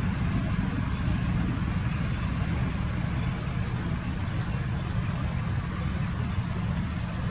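Steady low rumble with a fainter hiss above it, with no distinct events.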